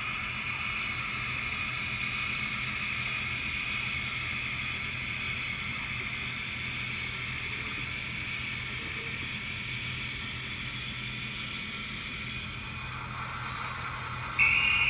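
OO9 model locomotive running with its train: a steady whirring hum with a faint low drone underneath. Near the end there is one short, loud high-pitched tone.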